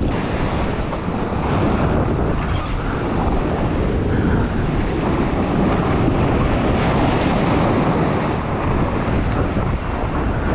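Surf washing in over shallow water, with wind buffeting the microphone.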